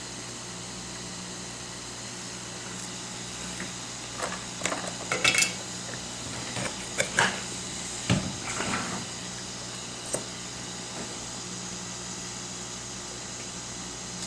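Steady hum of a hot-air rework station's blower. From about four to nine seconds in there is a scatter of small clicks and knocks as tools and the clamped logic board are handled on the bench.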